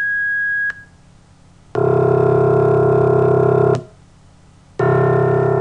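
A single high, steady pure sine tone, one sampled partial, cuts off just under a second in. Then a steady low, buzzy tone built from summed pure tones that replicates a piano's C1 note plays for about two seconds, and after a one-second gap plays again for about two seconds.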